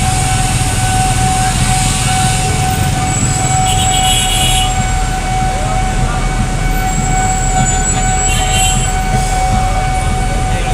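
KRL electric commuter train running, with a steady rumble under one steady high-pitched tone that holds through the whole stretch. There are short hissing patches about four and eight and a half seconds in.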